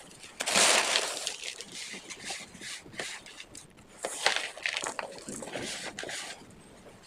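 Packed cornstarch being squeezed and crushed, giving squeaky crunching in bursts: a long loud one about half a second in and another cluster about four seconds in.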